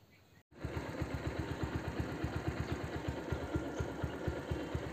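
An engine idling with a rapid, even pulse, starting about half a second in.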